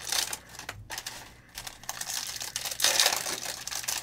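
Trading card packs and cards handled on a table: irregular crinkling of pack wrappers with quick clicks, loudest at the start and again around three seconds in.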